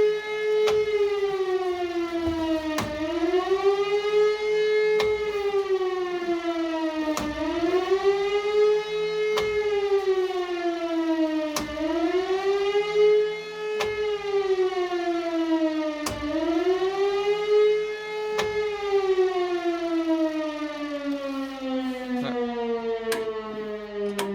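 E57 electric motor siren on a test run after a new contactor was fitted. Its tone rises and falls about every four and a half seconds, with a click at each rise and fall, like the one-minute wavering "Warnung" signal. In the last few seconds it stops cycling and its pitch sinks steadily as it winds down.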